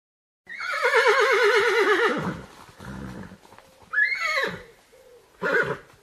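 Horse whinnying: a long quavering neigh that falls in pitch, then a shorter call that rises and falls about four seconds in, and a brief burst near the end.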